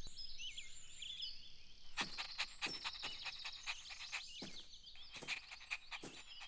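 Faint outdoor nature ambience of birds chirping and trilling, joined about two seconds in by a scatter of light clicks or taps.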